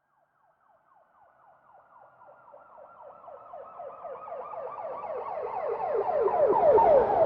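Emergency vehicle siren in a fast yelp: quick falling sweeps, several a second. It swells from almost nothing to loudest near the end, where its pitch drops as the vehicle passes by.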